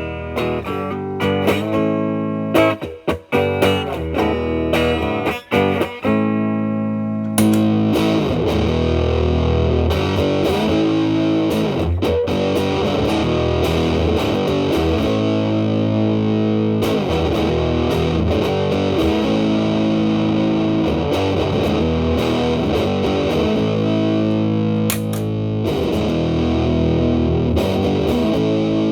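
Telecaster electric guitar with single-coil Alnico pickups, played through a Marshall Valvestate amp's clean channel. For about the first seven seconds it plays clean picked notes and chords. It then goes through an Electro-Harmonix Big Muff Pi fuzz pedal (the EC3003-A, 2N5088 version) as a thick, sustaining fuzz. A few seconds before the end, a second Big Muff Pi (the EC3003-E, BC550 version) is switched in.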